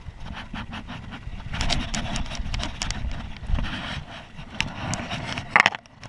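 Handling noise from a baitcasting fishing reel and tackle in a kayak: a run of short clicks and scrapes over a low rumble, with the loudest sharp click near the end.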